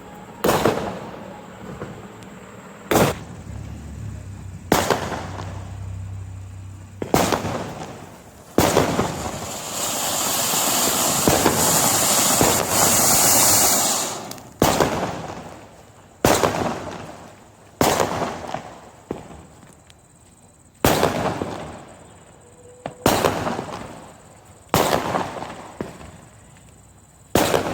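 Fireworks going off: a string of sharp bangs every second and a half or two, each trailing away, and a steady hissing spray of sparks for about five seconds in the middle, like a flowerpot fountain.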